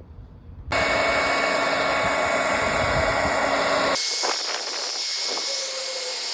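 Hair dryer blowing at full power, a steady rushing noise with a fixed motor whine. It switches on suddenly just under a second in, and about 4 s in its sound changes abruptly, losing the low rumble.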